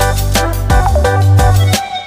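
Background music with a heavy bass line and a steady beat; the bass drops out near the end.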